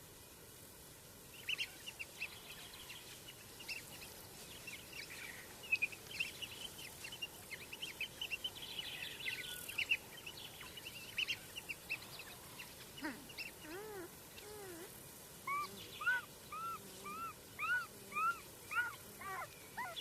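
African wild dogs chirping and squeaking in their bird-like twittering calls. Rapid high chirps come in clusters through the first half, then a run of repeated rising-and-falling squeaky calls, about two a second, in the second half.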